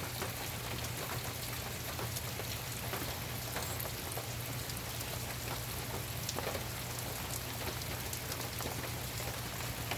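Steady rain falling, an even hiss with many scattered drops pattering and ticking on surfaces.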